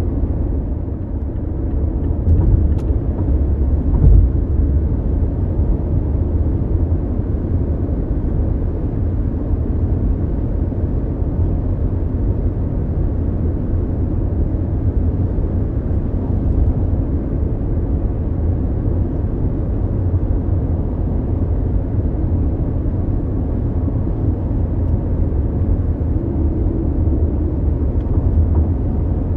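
Mazda CX-5 small SUV cruising on the highway, heard from inside the cabin: a steady low rumble of road and engine noise. There is a single brief bump about four seconds in.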